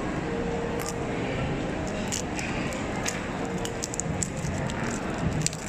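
Packaging being handled for an unboxing: a run of small crinkles and crackles, busiest from about two seconds in, over a steady background hum.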